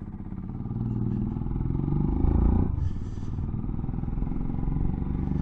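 Motorcycle engine accelerating, its pitch climbing for the first couple of seconds, then a brief dip at a gear change before it runs on steadily.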